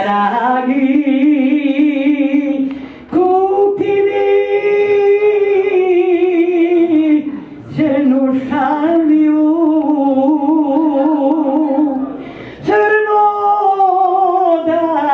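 A solo voice singing unaccompanied: four long phrases of held notes with a wide vibrato, each separated by a short breath. The pitch jumps up at the start of the second and fourth phrases.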